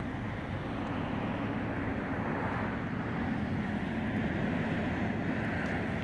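Steady rumble of road traffic, swelling a little in the second half as a vehicle passes.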